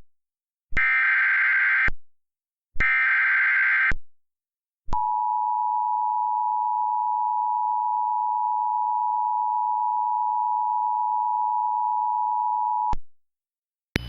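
Emergency Alert System signal for a flash flood warning: two buzzy digital SAME header bursts of about a second each, then the two-tone EAS attention signal (853 and 960 Hz together) held steady for about eight seconds before it cuts off.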